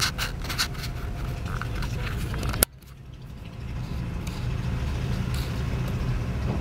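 Steady low road and engine rumble inside a car's cabin as it drives slowly. About two and a half seconds in there is a sharp click, the sound drops out abruptly, and it builds back over a second or so.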